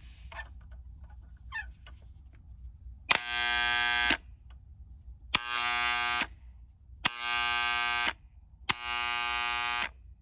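GE dishwasher detergent dispenser solenoid energised four times, each time snapping in with a click and then buzzing loudly for about a second.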